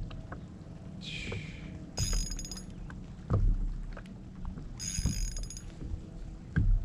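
Spinning reel's drag ticking out line in two short bursts, about two seconds in and again about five seconds in, as a big fish, presumably a catfish, pulls against the bent rod. Low wind rumble and a few dull knocks run underneath.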